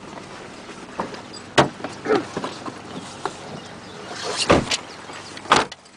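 A few sharp knocks and thumps inside a car cabin, one early and two heavier ones near the end, with rustling between.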